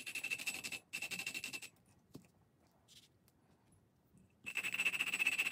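Intake valve being hand-lapped into a 125cc Chinese ATV cylinder head with a suction-cup lapping stick and valve grinding compound: the valve face rasps against its seat as it is twisted rapidly back and forth. The rasping comes in two short spells, stops for a few seconds, and starts again past halfway.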